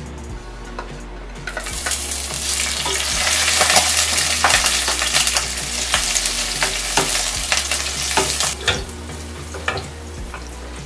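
Vegetable strips frying in hot oil in a nonstick pan: a loud sizzle starts about a second and a half in and dies down near the end. A spatula stirs them, scraping and tapping against the pan.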